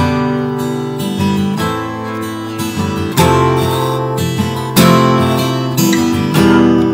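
Acoustic guitar strummed in chords with no singing, the chords ringing on between fresh strums about every second.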